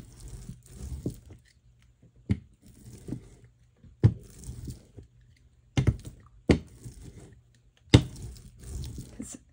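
Hand brayer being rolled back and forth over a freshly glued vellum die cut to press it down: repeated soft rolling swishes, with several sharp knocks as it is set down or bumps the work surface.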